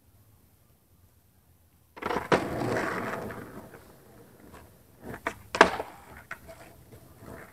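Skateboard dropped onto asphalt with a sharp clack about two seconds in, its wheels rolling loudly and fading as it moves off, then several sharp clacks of the board on the pavement a little past the middle, the loudest one among them.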